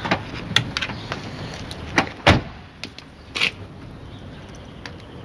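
Car door being opened and shut: a few handle and latch clicks and knocks, with the loudest knock about two seconds in.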